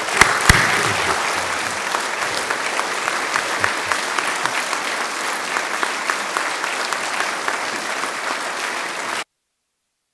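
A large congregation applauding steadily in a hall, dense clapping that cuts off abruptly about nine seconds in.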